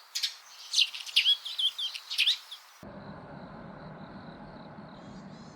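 Small birds chirping and twittering, with quick repeated calls, some sweeping down in pitch. After about three seconds this cuts abruptly to a steady outdoor hum with a thin, steady high whine.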